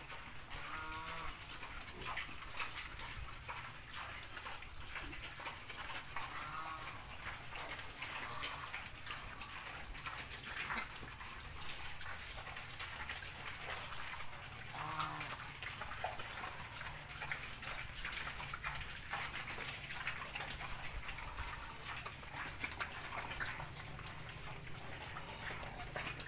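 A pig eating fresh-cut grass: continuous wet chewing, crunching and smacking with many small clicks. A few short pitched animal calls are heard about a second in, twice around six to nine seconds in, and once about halfway through.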